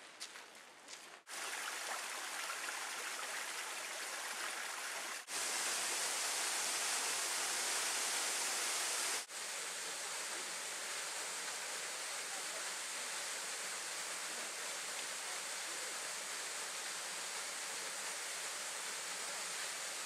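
Steady rushing of a small waterfall. It comes in abruptly about a second in, and is cut twice more, with a slightly louder stretch in the middle.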